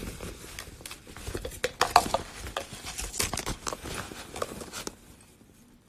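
Rustling and small clattering knocks as items are handled in a reusable grocery bag, busy for about five seconds and then dying away.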